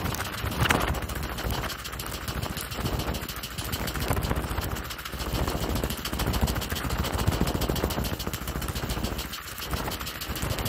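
Mountain bike rolling downhill over a rough dirt and gravel track: the knobbly tyres crunching and the bike clattering and rattling over the bumps, mixed with wind rushing on the camera microphone.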